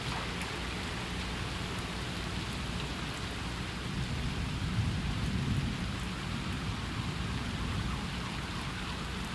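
Steady hiss of light rain falling on a flooded street, with a low rumble that swells about four to six seconds in and then fades.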